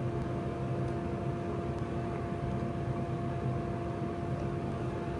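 Steady background hum: a constant drone with a faint even hiss, unchanging throughout.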